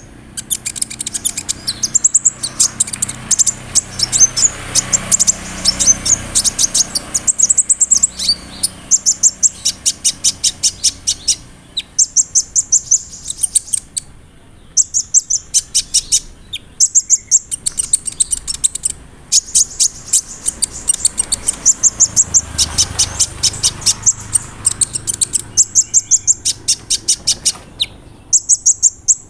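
Kolibri ninja (van Hasselt's sunbird) singing: rapid rolling runs of sharp, high ticking notes, one run after another with short breaks between.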